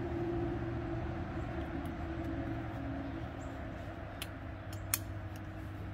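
A steady low engine rumble, like a vehicle running, slowly fading. A couple of sharp clicks come about four and five seconds in as a SOG folding saw is folded closed, the second click the loudest sound.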